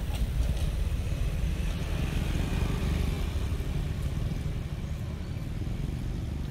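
Low, steady rumble of wind buffeting the microphone, with no distinct engine note.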